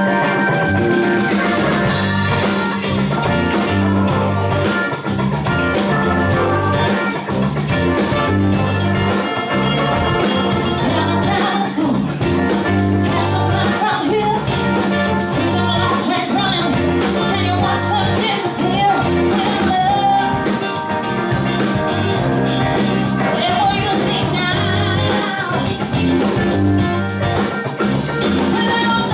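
Live rock band with electric guitars, bass guitar, keyboards and drums playing a steady, driving groove, with a woman singing lead over it.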